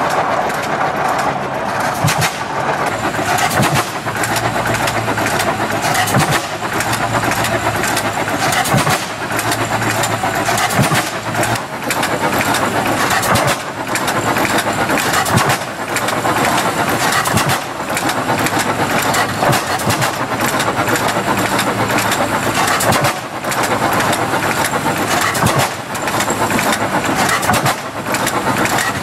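Early Hart-Parr tractor's two-cylinder engine running, its exhaust firing in sharp, unevenly spaced beats.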